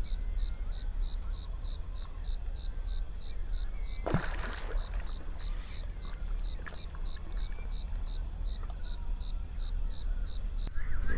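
Insects chirping steadily in short pulses about three times a second, over a low steady rumble. About four seconds in comes a single splash as the bullfrog lunges at its prey on the lily pads.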